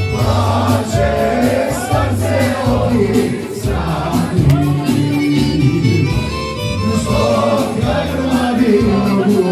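Loud music with singing over a steady bass line.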